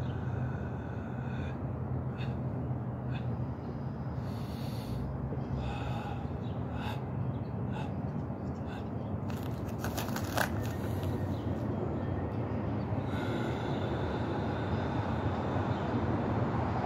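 Forceful Sanchin kata breathing: several sharp, hissing breaths over a steady low hum of street traffic.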